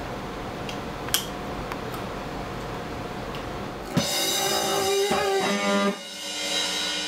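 Steady room hiss with one sharp click about a second in, then, from about four seconds, a band starts playing: electric guitar chords ringing out over a drum kit, with a brief dip near the end.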